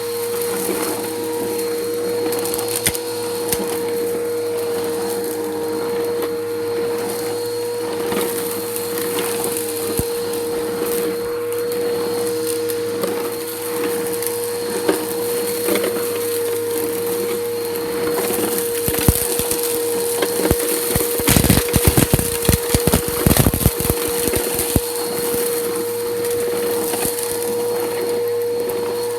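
Bissell Powerforce Helix 1240 vacuum cleaner running steadily with a constant motor whine while sucking grit and debris off concrete, giving continuous crackling. A few seconds past the middle the crunching and clicking of debris going up the nozzle gets thicker and louder for several seconds.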